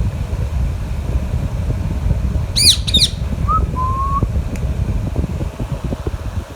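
A pet parrot gives two short, harsh screeches about two and a half seconds in, then two brief whistled notes, over a steady low rumble.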